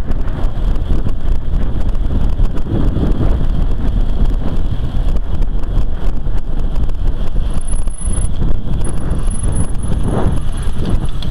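Steady wind rush buffeting the microphone of a camera riding on a moving recumbent trike, heaviest in the low rumble.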